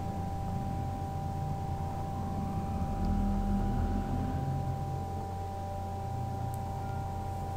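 Steady low hum with a few faint, unchanging whining tones above it.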